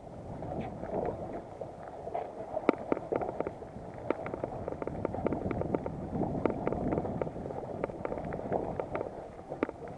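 Seawater lapping and slapping against the side of a small boat, with many irregular small splashes and wind on the microphone.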